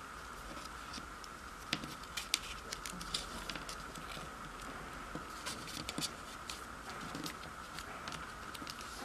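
A sheet of origami paper being folded and creased by hand: soft paper rustling and a scatter of small clicks as fingernails press and run along the folds, starting about two seconds in, over a steady background hum.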